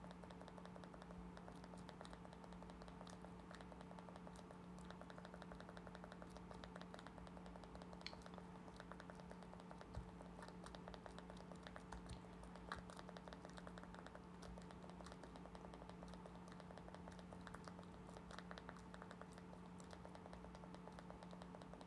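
Near silence: a faint steady electrical hum with faint, rapid clicking scattered throughout.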